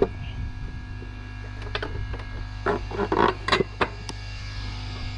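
Plastic engine cover of a riding mower being handled and pressed back into place over the engine: a series of hard plastic clunks and knocks, bunched together about three seconds in, over a steady low hum.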